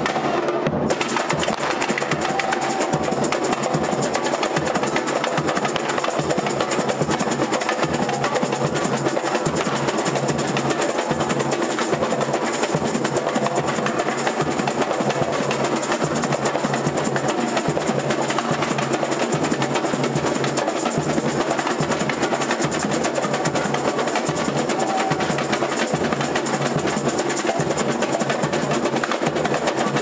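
Samba percussion ensemble (bateria) playing a fast, dense batucada together: caixa snare drums, surdo bass drums, tamborims and timbals.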